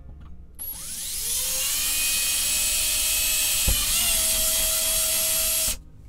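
Power drill spinning up with a rising whine, then running steadily for about five seconds, with one short knock partway through, before stopping suddenly.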